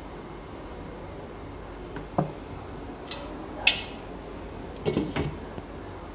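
A few sharp clinks and knocks of cookware, then a short clatter about five seconds in as a glass lid is set onto a large nonstick wok of simmering curry, over a steady low hiss.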